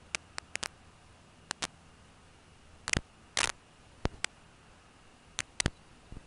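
Irregular sharp clicks and crackles, about a dozen, some in quick pairs, over a faint steady hiss.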